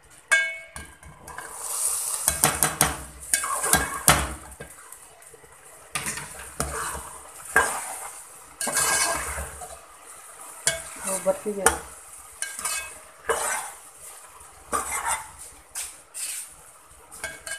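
Half-boiled rice tipped into hot jaggery syrup in a metal pot and stirred with a long metal spoon: the spoon scrapes and clinks against the pot in irregular strokes over a light sizzle.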